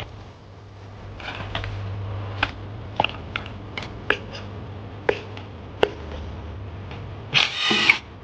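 Hand tools and metal engine parts clicking and clinking during engine disassembly, single sharp knocks a second or so apart over a steady low hum, with a short rasping burst near the end.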